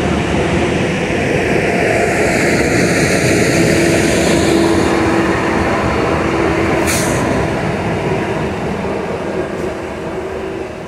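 Regional electric multiple unit running past on the station track with a steady rumble and motor hum, fading as it pulls away. A short high hiss comes about seven seconds in.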